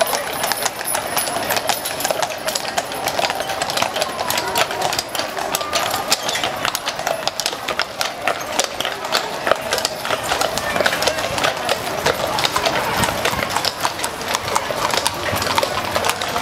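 Hooves of several horses pulling wooden wagons, clip-clopping on a paved street in a dense, irregular patter of overlapping hoof strikes.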